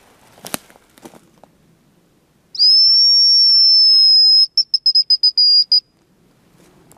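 Hazel grouse call blown on a tube whistle lure: one long, high, thin whistle of about two seconds, followed by a quick trill of about eight short notes at the same pitch. It is a hunter's imitation of the grouse's song, used to draw a bird in.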